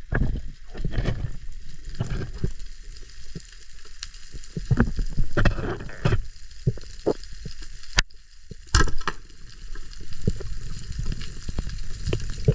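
Irregular crackling clicks and low thuds of water noise around a spearfisher's camera, with a sharper louder click about 8 seconds in.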